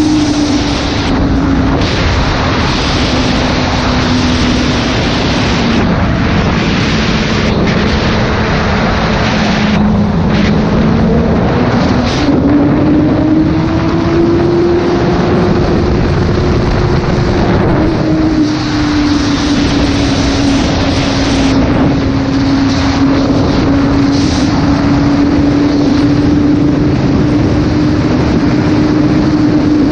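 Honda sport bike's inline-four engine running at high road speed, its tone dipping, then rising about twelve seconds in and easing back again a few seconds later. Heavy wind rush on the microphone is heard throughout.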